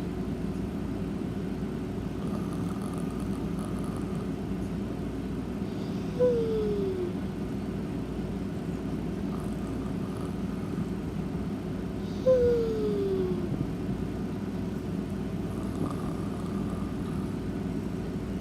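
Snoring in sleep: twice, about six seconds apart, a short whistling snore that slides down in pitch over less than a second, with faint breaths between, over a steady low hum.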